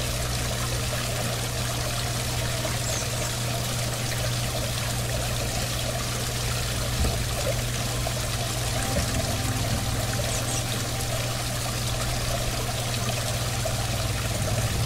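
Water from a large Serenity artificial-rock pool waterfall running down its ledges in several thin streams and splashing into the swimming pool, a steady trickling and pouring.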